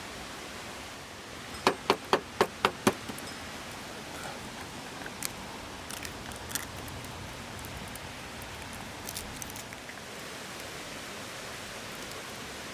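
Steady rush of a river. About two seconds in comes a quick run of six sharp clicks, about four a second, followed by a few fainter scattered ticks.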